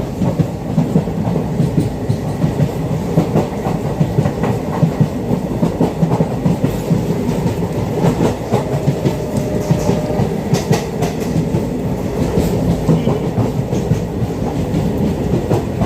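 Track sound of an Indian Railways ICF passenger coach on the move, heard from on board: a steady low rumble of wheels on rail with frequent sharp clicks and clatter as the wheels pass over rail joints.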